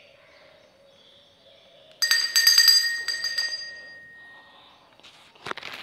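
Small metal bell rung with a rapid run of strikes for about a second and a half, its high tones then ringing out and fading. A short knock comes near the end.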